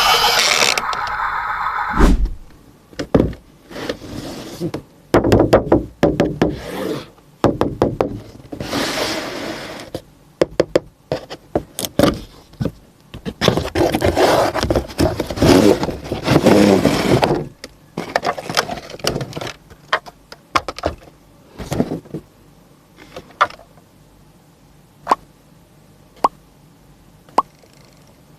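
Toy trucks being handled: many sharp clicks and knocks of plastic and metal parts, with several longer stretches of scraping or rustling. A loud sound cuts off about a second in, and the clicks thin out to single ticks over the last third.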